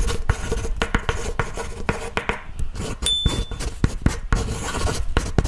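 Pen-scribbling sound effect of dense scratchy clicks and rubs, with a brief high chime about three seconds in.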